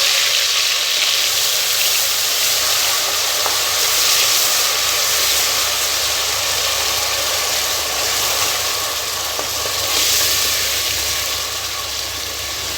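Wet ground onion, ginger, garlic, green chilli and herb paste sizzling in hot oil and ghee in a pressure cooker, a steady frying hiss that eases slightly toward the end.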